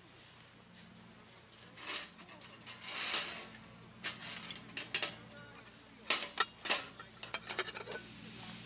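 Hard objects clinking and clattering as they are handled: a series of sharp clicks and knocks, irregular, with the busiest stretch after the middle.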